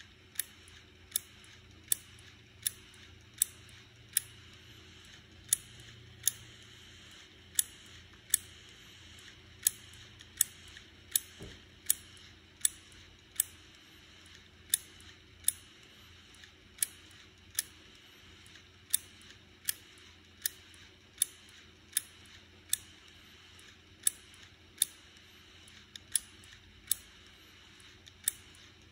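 Failing 1TB Western Digital WD10TMVW 2.5-inch portable hard drive clicking over and over, about one sharp click a second at slightly uneven intervals, over a faint steady hum. The clicking comes from a drive that the computer no longer recognises.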